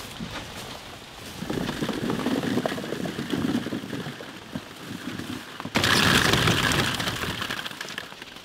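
Apples tipped out of a plastic-lined box onto a heap: a dense rumbling clatter of many fruit knocking and rolling against each other. About six seconds in comes a louder burst of crinkling plastic and tumbling apples, which then fades.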